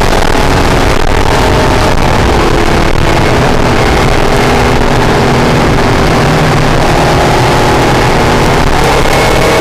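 Acura NSX's mid-mounted V6 heard from inside the cabin while lapping a race track. Engine pitch drops at the start, climbs steadily through the corner, dips briefly near the end, then climbs again. Heavy road and wind rumble runs underneath.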